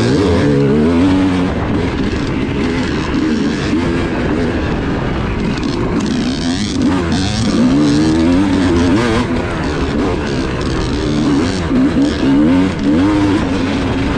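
Yamaha YZ250 single-cylinder two-stroke dirt bike engine running under riding load, its pitch rising and falling again and again as the throttle is worked along a rutted trail.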